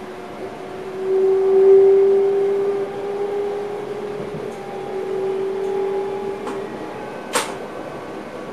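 Electric passenger train's traction whine heard inside the driver's cab: a steady hum whose pitch creeps slightly upward for about six seconds, loudest early on. A single sharp click comes near the end.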